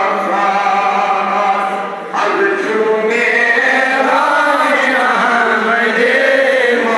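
Men's voices reciting Darood (salutations on the Prophet) together in a slow, melodic chant. The chant dips briefly about two seconds in, then resumes.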